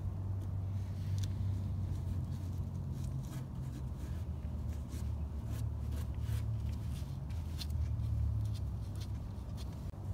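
A steady low rumble throughout, with many light clicks and rustles from gloved hands pressing fiberglass cloth and a small glue bottle onto a car's wheel arch.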